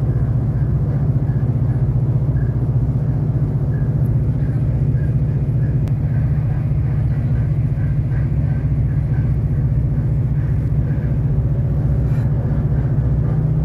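Diesel railcar running along the line, heard from inside the passenger cabin: a steady low engine drone with rumbling wheel and track noise. A faint, high chirp repeats regularly through most of it.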